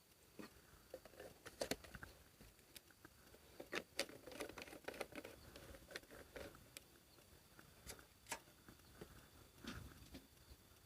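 Scattered light clicks and taps at an irregular pace, with soft rustling between them, over a faint steady high tone.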